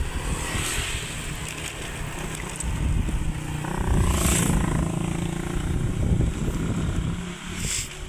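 Riding noise from a moving vehicle: wind buffeting the microphone over a low engine rumble. An engine note rises about three and a half seconds in and runs steadily for about four seconds, with a short rushing swell near the middle and another near the end.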